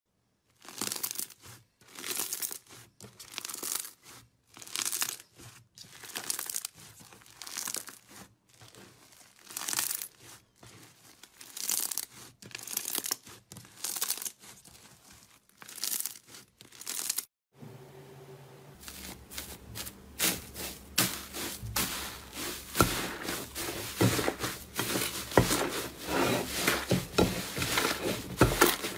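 Foam-bead slime (floam) being stretched and squeezed by hand, crackling in short bursts about once a second. After a cut about two-thirds of the way in, a thick green slime is kneaded with both hands and the crackling becomes dense and almost continuous.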